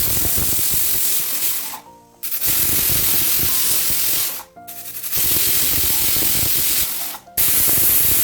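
Pressure cooker whistling: steam jets hissing out of the weight valve in a string of separate blasts about two seconds each, with short breaks between. The whistles count the cooking time for the beef inside.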